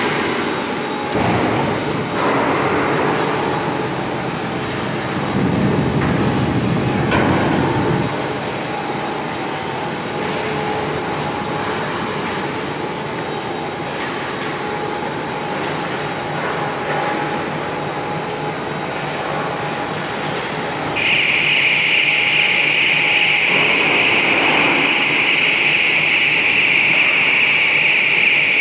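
Stainless-steel slaughter-line machinery running with a steady mechanical din, with a few louder noisy surges early on. About two-thirds of the way through, a loud, steady high-pitched hiss starts and carries on.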